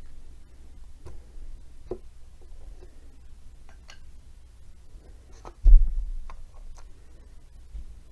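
Light clicks and taps of flat cut-out story pieces being set down on a felt-covered table, with one louder, low thump a little past the middle.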